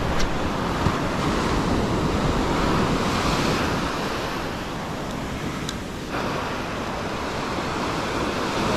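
Small waves breaking and washing up the sand at the water's edge, a steady rush of surf, with wind buffeting the microphone.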